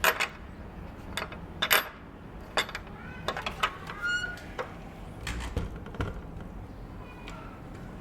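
Door latch clicking and rattling several times, the knocks coming in irregular groups, with short squeaks from the door in the middle, the clearest one about four seconds in.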